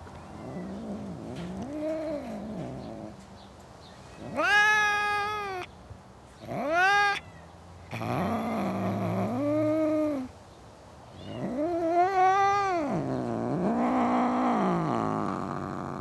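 Angry cats caterwauling at each other: a series of drawn-out, wavering yowls that rise and fall in pitch, some low and moaning. The loudest, higher-pitched yowls come about four and a half and six and a half seconds in, and a long one runs near the end.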